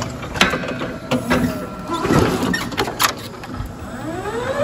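Electric forklift at work picking up a pallet: several sharp clunks and knocks from the forks and mast, with the electric motor's whine rising and then falling near the end.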